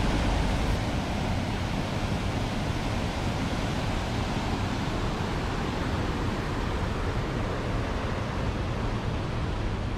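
Steady rush of a muddy waterfall and rapids running full after heavy rain.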